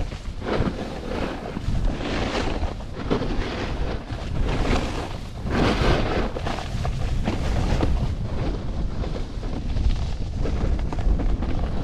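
Wind buffeting the camera microphone, with the hiss of a Capita Spring Break Slush Slasher snowboard's edge scraping across packed snow, swelling and fading with each turn.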